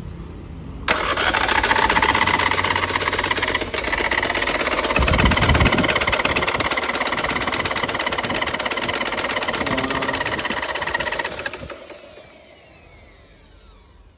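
Mitsubishi 4M40 four-cylinder diesel engine running. A quieter hum suddenly gets much louder about a second in, holds steady for about ten seconds, then dies away and stops near the end.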